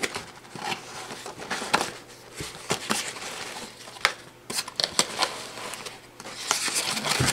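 Cardboard box and its packing being handled and opened by hand: irregular scrapes, rustles and light taps.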